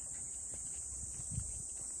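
Steady high-pitched drone of insects, with a few soft low thumps, the strongest about one and a half seconds in.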